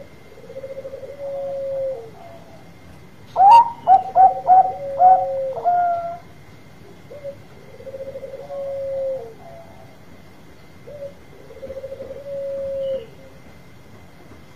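Zebra dove (perkutut) singing its rolling coo three times; each phrase is a short note, a trill, then a longer held note that drops at the end. About three and a half seconds in, a louder run of about six short, clipped cooing notes cuts across one phrase.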